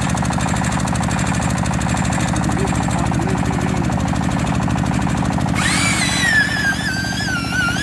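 A small engine running steadily with a fast, even chugging pulse. About two-thirds of the way through, background music with a wavering, theremin-like melody comes in over it.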